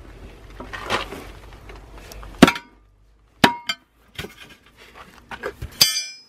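Sledgehammer and tyre-iron work on a Mitsubishi Galant steel wheel, freeing an old, hardened tyre by hand: rubber scraping, then a series of sharp metallic knocks, the loudest about two and a half seconds in, ending in a ringing clink of steel near the end.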